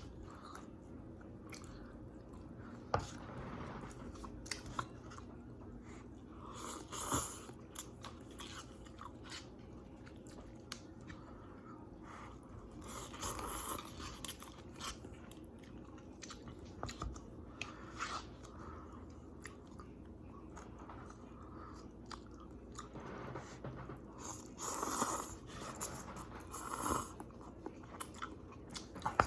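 A person chewing and eating ramen noodles close to the microphone: soft mouth sounds with scattered clicks and a few louder short bursts spread through.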